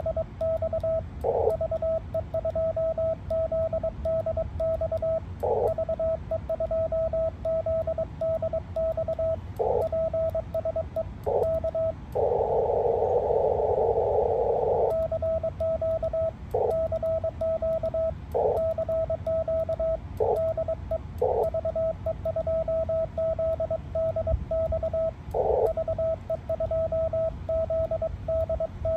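Ham radio transceiver's Morse code (CW) sidetone: a steady single tone keyed on and off in dots and dashes as the operator calls CQ. Short patches of hissy receiver band noise come between the keyed stretches, with a longer patch about twelve seconds in.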